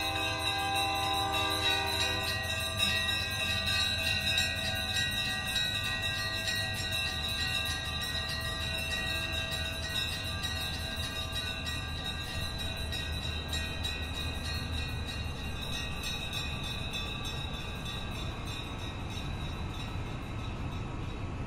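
Bells ring and fade out in the first two seconds; then a long freight train with two engines and 106 cars rolls slowly past, a steady low rumble with sustained high tones over it.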